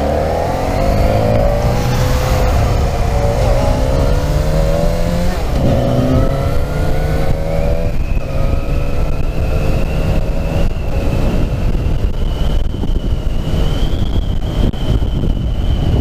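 Motorcycle engine accelerating away from a stop, its pitch climbing and dropping back several times as it shifts up through the gears in the first half, then holding a steadier drone at cruising speed. A thin high whine rises slowly over the second half.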